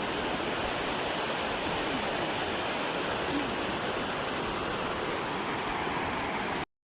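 Valley stream water rushing steadily, an even hiss with no rhythm, cutting off suddenly near the end.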